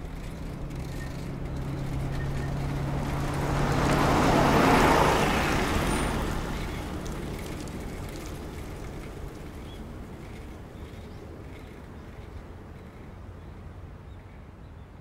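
A minibus driving past. Its low engine hum and tyre noise grow louder, peak about four to five seconds in, then fade away slowly.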